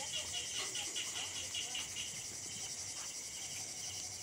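Night insects chirping in a steady chorus, a high pulsing trill repeating a few times a second.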